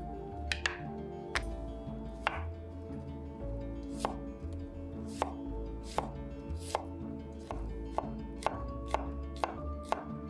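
Kitchen knife chopping vegetables on a wooden cutting board: about fifteen sharp strikes at an uneven pace, closer together in the second half, over soft background music.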